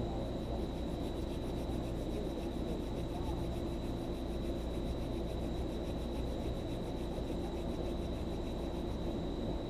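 Night-time outdoor ambience: a steady low hum, with a fast, even pulsing of calling insects above it that stops shortly before the end.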